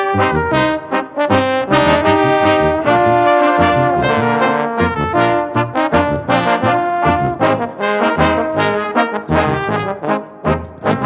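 Bavarian brass band (Blasmusik) playing live: trumpets, trombones, a baritone horn and a tuba in close harmony, with a lively melody of short, rhythmic notes over the tuba's bass line.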